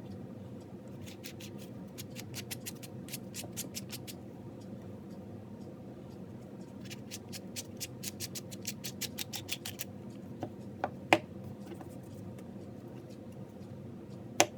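Two runs of rapid light clicks, about six a second, then a few sharp knocks, from small metal parts being handled. Under them the steady hum of a fan.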